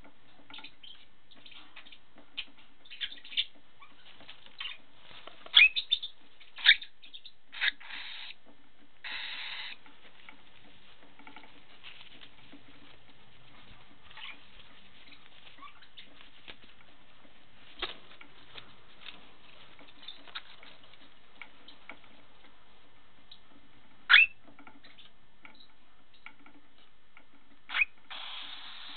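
Young grey cockatiel giving short, sharp chirps now and then, the loudest about a third of the way in and again near the end. Between them come soft fluttering and rustling as it flaps its wings on the hand.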